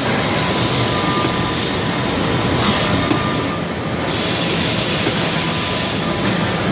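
Haas SL-10T CNC lathe running: a steady mechanical noise with a hiss and a faint steady whine, the high end dropping away briefly about halfway through.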